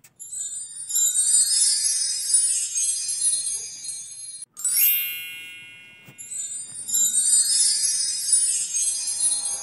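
High-pitched background music. About halfway it cuts off, a rising sweep rings out and fades away, and the music starts again.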